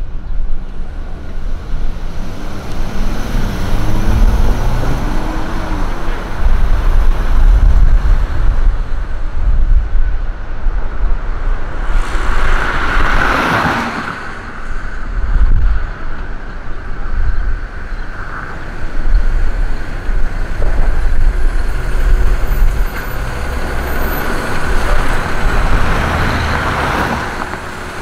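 Road traffic noise: a loud, uneven low rumble of engines and tyres. About twelve seconds in, a vehicle passes close by with a rush that swells and fades.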